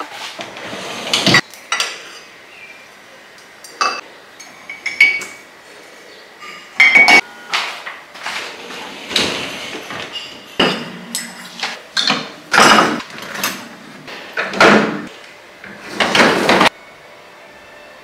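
Dishes, mugs and cutlery clinking and the dishwasher's wire racks rattling as the racks are loaded and handled. It comes as a string of separate clatters, some with a brief ring, and cuts off suddenly near the end.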